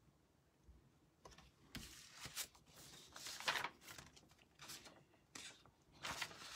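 Paper and craft supplies being handled on a tabletop: a run of short rustles and scrapes starting about a second in, several in a row.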